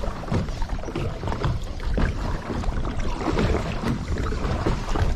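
Water sloshing and splashing around a kayak, with wind rumbling on the microphone.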